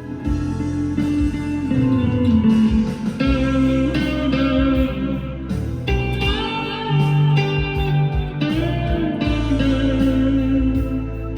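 PRS SE 245 electric guitar played on an amp's clean channel with reverb and delay: a run of single notes and chords, with notes sliding in pitch and sustained low notes beneath.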